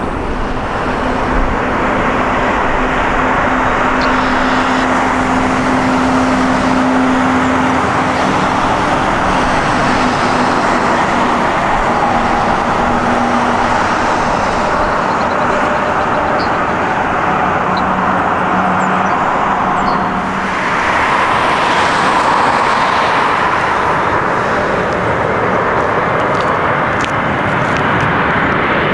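Steady roar of a Lufthansa Airbus A350-900's Rolls-Royce Trent XWB jet engines as the airliner rolls along the runway after landing. About 20 seconds in, the sound changes to an Air Canada Airbus A220-300 on final approach, its Pratt & Whitney geared turbofans giving a steady whine over the roar.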